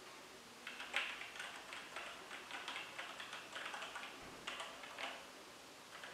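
Typing on a Logitech G413 Carbon mechanical keyboard with Romer-G switches: a quick, uneven run of small key clicks starting about half a second in and dying away near the end. The switches are not that loud.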